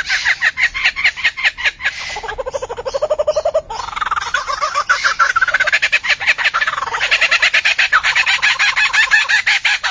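Birds calling in fast runs of short repeated notes. A lower run of notes rises in pitch about two and a half seconds in.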